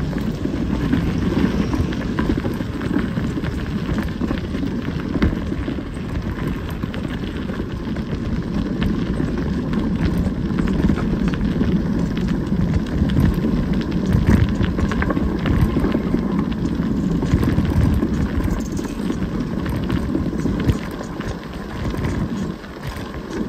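Bicycle tyres rolling over a gravel path, picked up by a phone mounted on the bike: a steady low rumble with dense crackling.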